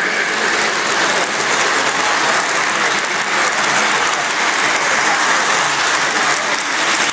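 O gauge model freight cars rolling past close by on the track: a steady, loud, dense rolling rattle of metal wheels on rail.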